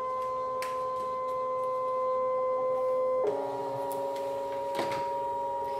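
Brother ScanNCut cutting machine scanning vinyl on its mat: a steady motor whine as the mat is fed through, changing to a different pitch about three seconds in.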